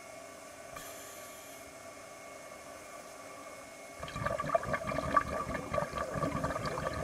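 Heard underwater: a steady faint hum, then about four seconds in a diver's exhaled air bubbling out in a gurgling, crackling rush that carries on to the end.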